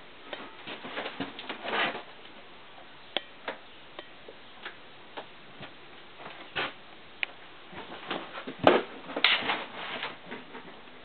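Irregular light knocks and clicks in a small room, with a louder cluster of knocks about eight and a half seconds in.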